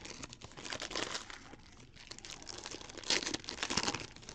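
Foil wrapper of a Panini Optic trading-card pack crinkling in the hands as it is handled and opened, with scattered crackles and a couple of louder crinkles about three seconds in.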